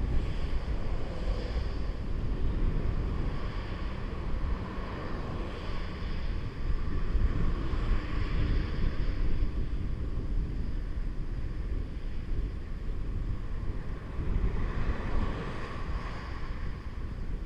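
Wind buffeting the microphone of a head-mounted action camera on a moving bicycle: a steady low rumble with a hiss that swells and fades every few seconds.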